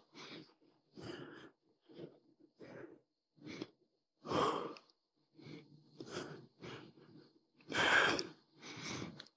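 A man breathing hard with exertion during a set: short, forceful breaths through the mouth about once a second, two of them louder.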